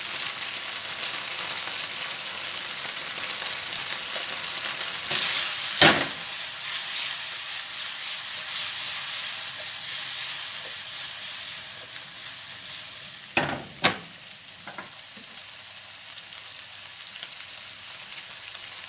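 Chicken and vegetable stir-fry sizzling in a frying pan as the pan is shaken and tossed, with a sharp knock about six seconds in and two more about half a second apart later on. The sizzle eases off over the last few seconds.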